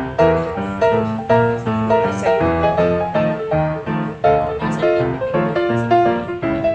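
Background piano music, notes struck at a steady pace of about two a second.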